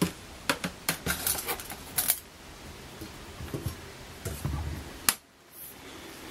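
Handling noise on a workbench: a quick run of light clicks and knocks in the first two seconds, a few softer knocks a little later, and one sharp click about five seconds in.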